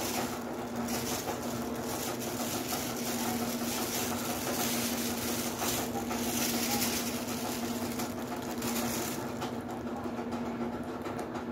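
Steady hum of a small motor at one constant pitch, under a high hiss that drops away about nine seconds in.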